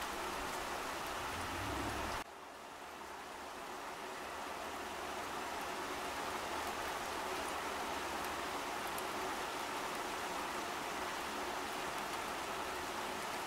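Steady rain falling on a puddle, a continuous hiss with faint scattered drop ticks. About two seconds in it cuts abruptly to a quieter, thinner hiss, then builds back to a steady level over the next few seconds.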